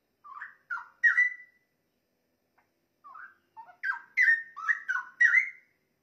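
Straw-headed bulbul (cucak rowo) singing: a short phrase of three rich, whistled notes, then after a pause of about a second and a half a longer run of quick, rising-and-falling whistled notes.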